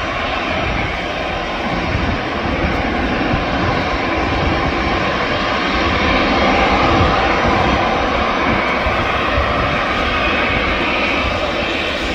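Airliner engines running: a steady, loud rushing noise that swells slightly about halfway through.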